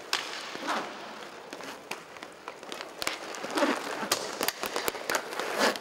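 Inline hockey play: sharp clacks and clicks of hockey sticks and the puck on the plastic sport-tile floor, scattered throughout and busiest in the second half.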